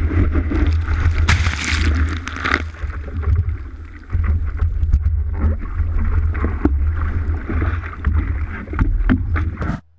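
Sea water splashing and sloshing over an action camera mounted on the nose of a stand-up paddleboard, over a steady low rumble of wind and water buffeting the housing. The heaviest splash comes about one to two and a half seconds in, followed by scattered knocks and slaps against the board, and the sound cuts out abruptly just before the end.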